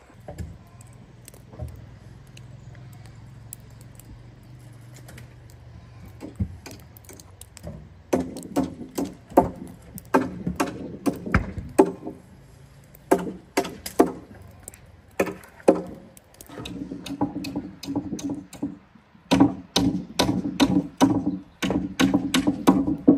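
Irregular sharp knocks and cracks of wood being struck, starting about a third of the way in and coming more often toward the end. A low steady hum underlies the first part.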